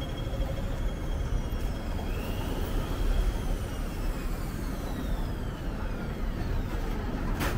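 Street traffic: a vehicle passing close by with a high whine that rises and then falls in pitch as it goes past, over a steady low rumble of traffic. A sharp click near the end.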